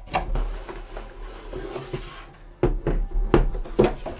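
Cardboard mailer box being handled and opened and a hard plastic case lifted out of it, with cardboard rustling and scraping, then a few sharp knocks in the second half as the case and box are set down on a wooden tabletop.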